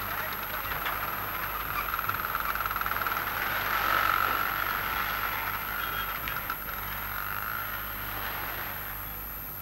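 Motor engine running with a dense rattling buzz as a van drives off a ferry onto the landing ramp, swelling about four seconds in and easing toward the end over a steady low hum.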